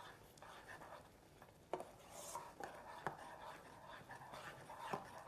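Faint, scattered taps and scrapes of a utensil in a small electric cooking pot as noodles are mixed with their flavoring.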